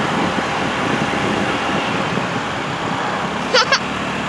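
A car rolling slowly along a paved road: a steady hum of engine and road noise. About three and a half seconds in there are two short high chirps.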